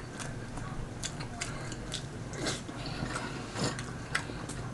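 A person chewing a mouthful of boiled chitterlings (pork intestines): irregular mouth clicks and smacks, several a second.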